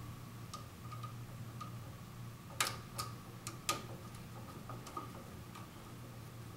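Faint irregular clicks of a screwdriver tip working in the slot of a light switch's green ground screw as the screw is turned down on a bare copper ground wire loop, with three sharper clicks between about two and a half and four seconds in. A faint steady low hum runs underneath.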